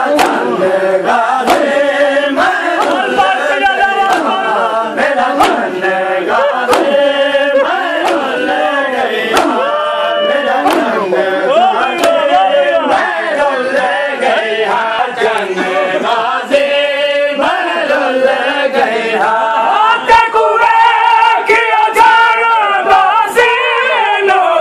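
A crowd of men chanting a noha (Shia mourning lament) together, with sharp chest-beating strikes of matam landing in rhythm about every second and a half.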